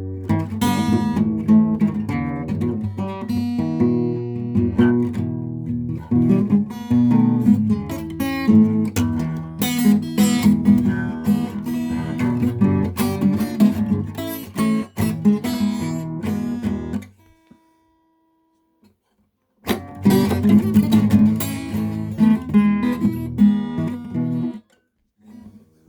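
Guitar playing a blues instrumental, plucked and strummed notes over a repeating low bass line. It breaks off for about two and a half seconds partway through, then picks up again and stops shortly before the end.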